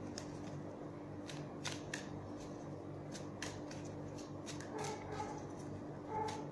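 Tarot cards being shuffled by hand: soft, irregular clicks and slides of the cards against each other, over a steady low hum.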